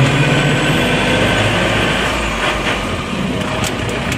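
Safari tour vehicle's engine running steadily as it drives along a dirt track, a low hum under a rumble of road and wind noise.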